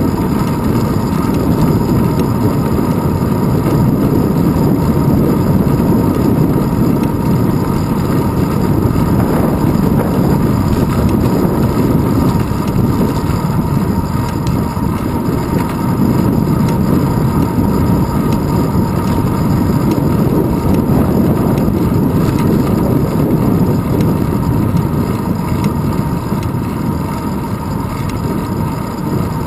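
Steady low rumble of wind rushing over a handlebar-mounted GoPro camera and road vibration from a moving bicycle.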